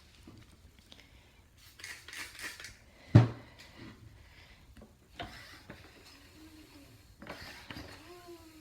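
Clattering metal handling noises, with one sharp loud clank about three seconds in and a few lighter knocks and rustles after it.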